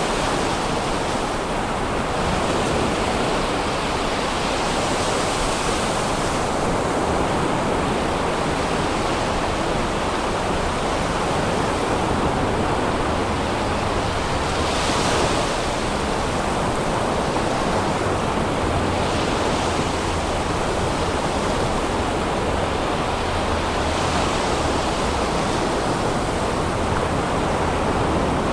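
Sea surf breaking and washing up on a sandy beach: a continuous rushing that swells with each wave every few seconds, the biggest swell about halfway through.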